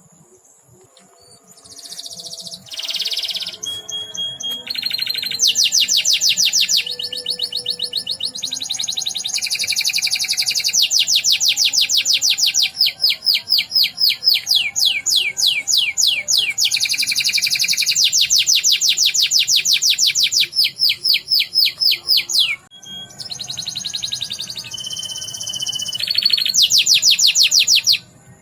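Domestic canary singing a long, loud song of rapid rolling trills, fast strings of repeated high notes broken by a few short pauses, one of them about three quarters of the way through.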